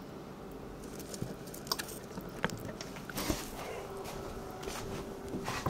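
A few light clicks and taps over a faint steady hum, with a brief rustle of handling noise about three seconds in as the handheld camera is swung around.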